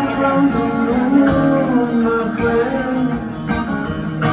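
Live rock band playing an instrumental passage: sustained guitar and keyboard chords over bass and drums, loud and steady.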